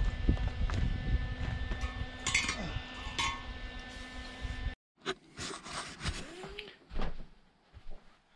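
Low outdoor rumble with two short metallic clinks about two and three seconds in. The sound then cuts out abruptly, and a few quiet knocks and rustles follow.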